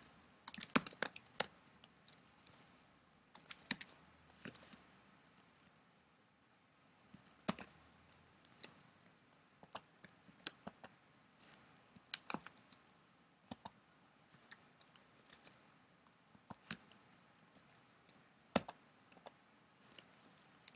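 Faint, scattered clicks of a computer keyboard and mouse, coming irregularly and singly or in small clusters with quiet gaps between them.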